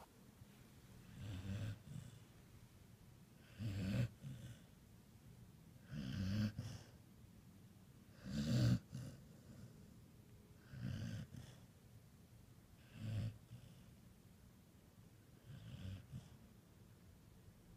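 A sleeper snoring: seven slow, rasping snores, one about every two and a half seconds, each lasting under a second and separated by quiet breathing gaps.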